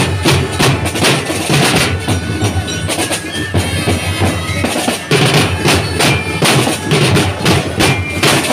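Street drumline of snare, tenor and bass drums playing a fast, driving rhythm, with a held melodic line sounding over the drums.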